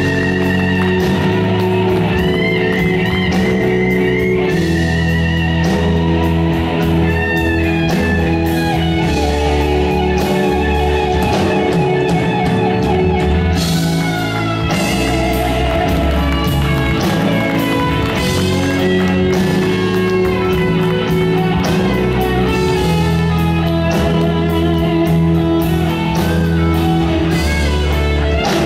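Live rock music led by an electric guitar: sustained lead notes bent up and down over steady bass and chords.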